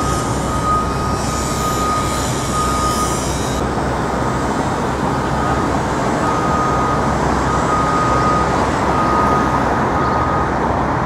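Steady city street traffic noise from passing vehicles, with a repeated high electronic beep that sounds in bursts, pauses for a few seconds early on, then resumes.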